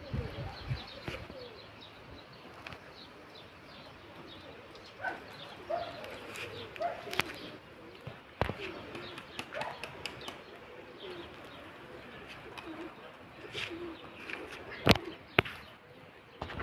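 Domestic pigeons cooing in short low calls, with faint higher chirps and a few sharp clicks, the loudest near the end.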